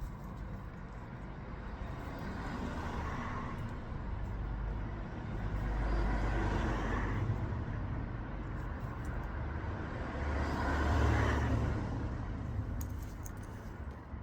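Road traffic: two vehicles pass, each a slow swell of engine rumble and tyre hiss, about six and eleven seconds in, over a steady low rumble.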